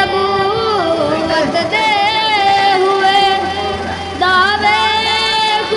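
A boy singing a naat solo, holding long ornamented notes that waver and glide in pitch, with brief breaks for breath about a second and a half in and again about four seconds in.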